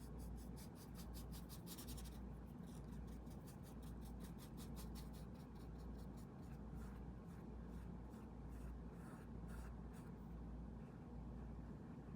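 Paintbrush scrubbing back and forth on a stretched canvas in quick, even strokes, about four a second, dying away near the end, over a faint steady low hum.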